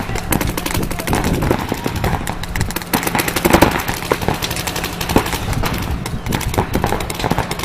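A dense, rapid, irregular run of sharp cracks and knocks.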